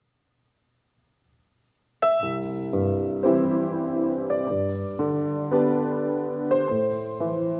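A grand piano starts playing about two seconds in, after near silence, with chords and single notes struck about every half second to a second and left to ring.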